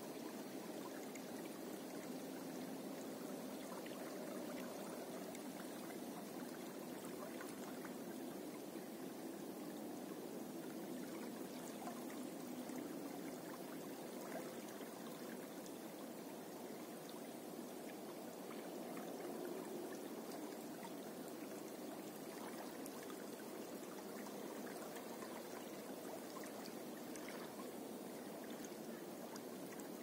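Small river flowing over a shallow stretch, water babbling and splashing steadily.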